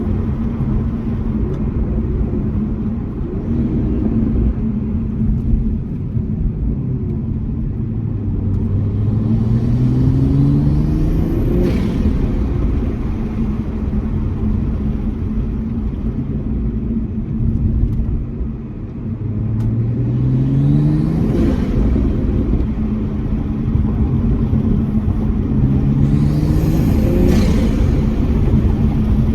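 Turbocharged Toyota Supra engine with an aftermarket downpipe and intake, accelerating hard three times with the engine note rising. Each pull ends in a short high-pitched hiss of turbo flutter as the throttle is lifted. A steady low drone runs underneath.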